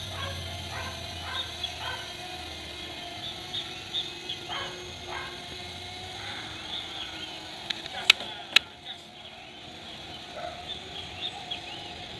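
Background of short high chirps scattered throughout, with two sharp clicks about eight seconds in.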